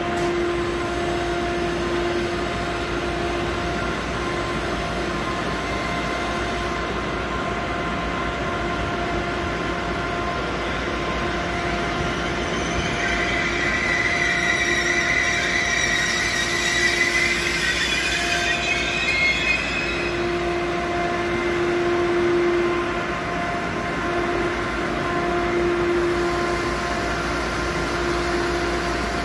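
Red DB double-deck electric regional train pulling in along the platform, its wheels and brakes squealing in a high, wavering screech for several seconds about halfway through, over a steady hum.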